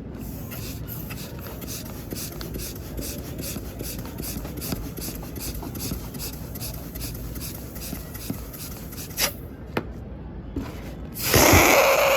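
Hands rubbing and scratching a package of mini balloons in a regular rhythm, about three strokes a second, with a few sharp clicks. A louder rushing, rustling noise starts near the end.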